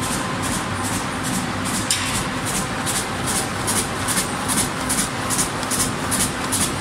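Corrugated carton box making machine running at working speed: a steady mechanical rumble with a regular swishing about two or three times a second as printed cardboard sheets feed through and out onto the conveyor.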